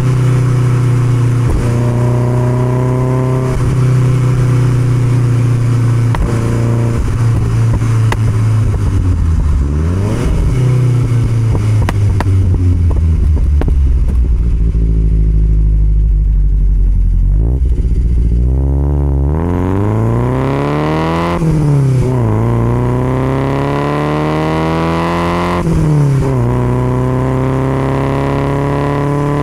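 1969 Alfa Romeo Spider 1750's twin-cam four-cylinder engine running through an Alfaholics exhaust, heard from the open car on the move. It holds a steady cruise, drops to low revs for several seconds, then climbs hard in pitch about two-thirds of the way through, with a quick dip at each of two gear changes, and settles back to a steady cruise near the end.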